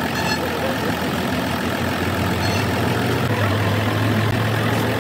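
An engine running steadily at idle, a constant low hum that swells a little past the middle. A couple of faint light metallic clinks come through, one right at the start and one about halfway.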